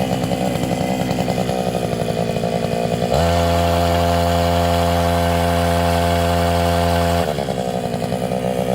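The 65 cc engine of a Stella Plus SP-1000 hook-type tree-shaker harvester running with a rapid pulsing beat. About three seconds in it jumps to a louder, steady high-speed drone, holds for about four seconds, then drops back to the pulsing beat near the end.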